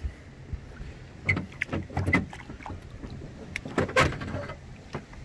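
Several sharp knocks and clunks in a small fishing boat, bunched in two clusters, the loudest about four seconds in.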